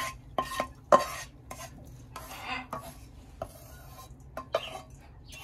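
Spoon stirring dry roat mixture of roasted flour, semolina, coconut and dry fruit in a bowl, with scattered sharp clinks against the bowl and short dry scrapes.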